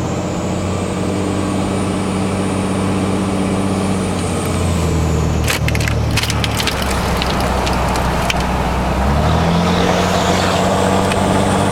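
Dodge Cummins turbo-diesel pickup under acceleration, its turbocharger whistling loudly with the silencer ring removed, over the exhaust drone of a 4-inch straight pipe. The whistle climbs in pitch over the first few seconds and falls away with a spell of sharp clicks a little past halfway as the engine note changes. It climbs again near the end.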